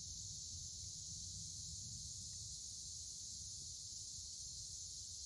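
Steady chorus of insects in the woods, a continuous high-pitched drone with no breaks, over a low rumble.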